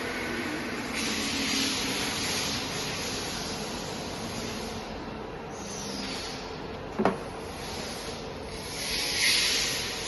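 Waterjet cutting machine running with a steady hiss that swells near the end, and one sharp click about seven seconds in.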